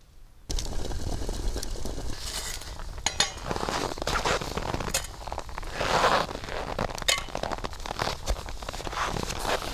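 Metal camp dishes clinking as a steel plate and spoon are handled and set down, with sharp ringing clinks about three seconds in and again about seven seconds in, amid constant rustling and crackling.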